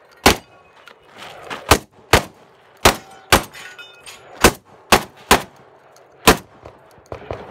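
A long gun fired nine times in quick pairs and runs, the shots about half a second apart, in a fast 3-gun stage run. Faint metallic ringing follows some of the shots, from hits on steel targets.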